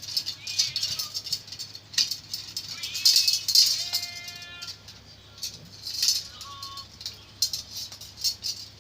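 Loose metal bicycle spokes clinking and rattling in quick irregular clicks as a back wheel is laced, over background music.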